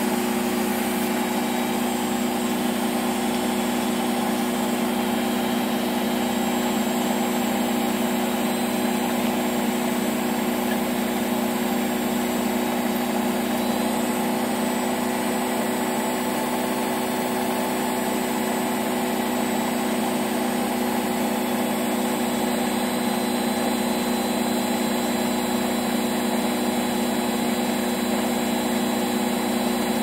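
Miele Novotronic W921 washing machine in its spin cycle, the drum spinning at a steady speed. It makes a constant hum at one unchanging pitch over a rushing noise.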